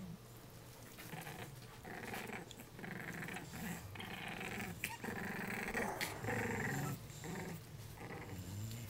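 Three-week-old English bulldog puppies play-fighting, making small growls and grunts as one mouths the other, loudest in the middle stretch.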